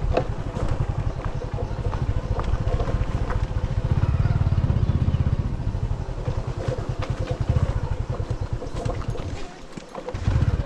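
Small motorcycle engine running as the bike rolls over a rough dirt and stony track, with scattered clicks and knocks over it. The engine sound drops away briefly about nine and a half seconds in, then picks up again.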